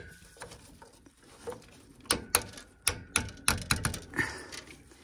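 A quick run of sharp clicks and knocks, starting about two seconds in, as the return pipe is worked into the top of the boiler's circulating pump, with a brief rustle near the end.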